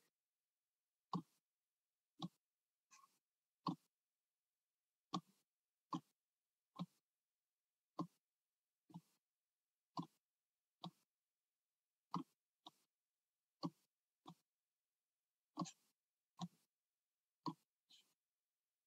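Computer mouse clicking as tiles are picked up and dropped: about twenty short, sharp clicks, roughly one a second, with dead silence between them.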